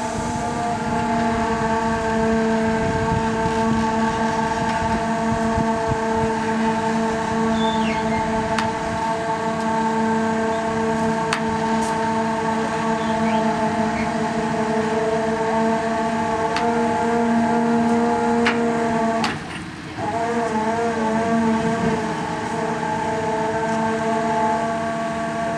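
Heavy truck's engine running steadily, probably driving the winch that lets the tank wagon down the trailer ramp: a droning hum held at one pitch, with a short dip about nineteen seconds in and a few faint clicks.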